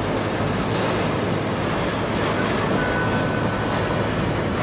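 Steady rushing noise of wind on the microphone and breaking surf.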